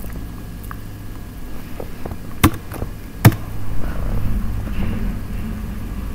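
Two sharp computer-keyboard keystrokes under a second apart, a couple of seconds in, with a few fainter key ticks, over a low steady hum.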